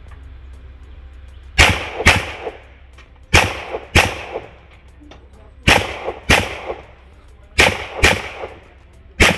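Pistol shots fired in pairs: four double-taps, the two shots of each pair about half a second apart and the pairs a second or two apart, then a single shot near the end. Each shot cracks sharply and trails off in a short echo.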